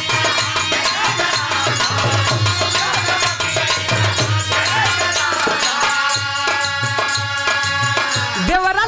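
Birha folk song: two accompanying singers sing the refrain together over harmonium and a steady percussion beat. Near the end the voices give way to held harmonium tones on the beat.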